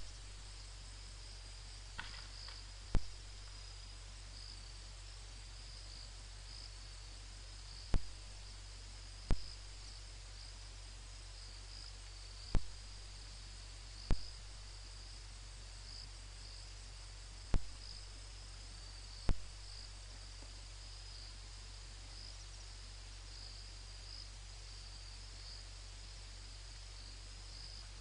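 Night crickets chirring steadily in a high, slightly pulsing trill, over a low steady hum. About eight sharp clicks cut in at irregular intervals and are louder than the insects.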